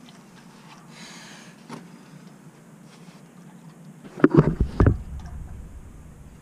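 A thin stream of old engine oil trickling from a tractor's sump into a metal bucket, with a short cluster of dull thumps about four seconds in.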